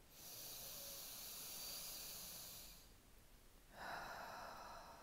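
A woman's slow, faint inhale through her left nostril, the right one held shut by a finger, lasting close to three seconds, as the first part of a single-nostril calming breath. After a pause of about a second, an out-breath begins near the end.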